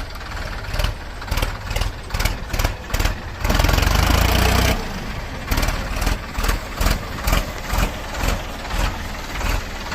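Solis 5015E tractor's diesel engine running, its sound pulsing about three times a second. A few seconds in, a louder rush of noise covers it for just over a second.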